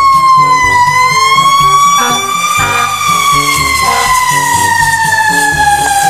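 Fire truck siren wailing. Its pitch rises slightly about a second in, then falls slowly through the rest.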